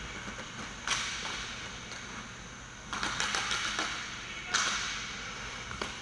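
Inline hockey play: sharp clacks of sticks and puck on the plastic rink floor, three louder ones about a second, three and four and a half seconds in, among smaller clicks, each echoing in the rink hall.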